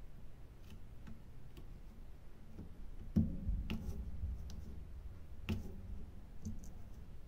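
Small clicks and taps of a diamond-painting drill pen setting resin drills onto the canvas, with two louder knocks about three and five and a half seconds in.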